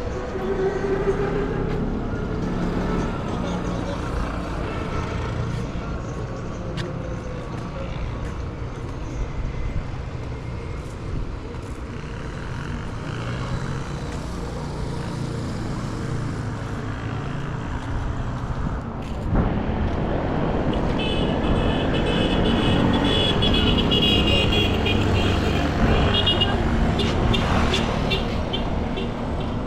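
Street traffic: vehicle engines and tyres running past, with voices mixed in, getting louder about two-thirds of the way in. Near the end a high tone pulses over and over for several seconds.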